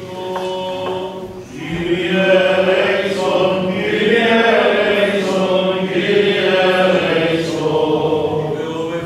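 Greek Orthodox Byzantine chant during a church service, sung by several voices holding long, slowly gliding notes. It swells louder about two seconds in.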